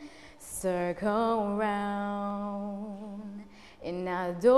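A solo voice singing a slow English-language song, holding long notes with vibrato: one note held about two and a half seconds, a brief pause, then a rising note near the end.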